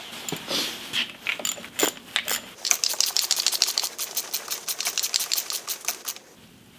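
Light knocks and clatter of parts being handled, then a run of quick, even, sharp clicks, about six a second, lasting some three seconds before stopping.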